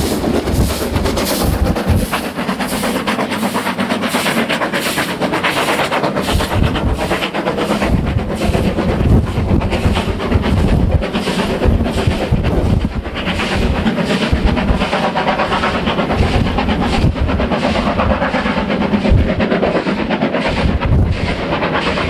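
Steam locomotive working hard, its exhaust beats in a steady rhythm over a continuous rush of train and wind noise.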